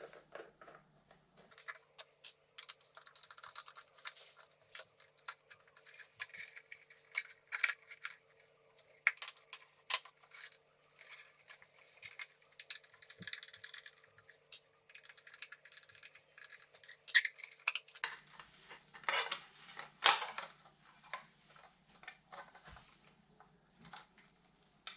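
Small tools and electrical parts handled at a workbench: irregular clicks, clinks and scrapes, with a faint steady hum from about two seconds in until about eighteen seconds.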